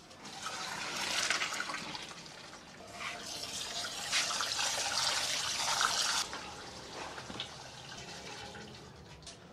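Boiled macaroni and its cooking water poured from a pot into a plastic colander, the water splashing through into the sink, then tap water running onto the pasta to rinse it. The water sound drops sharply about six seconds in.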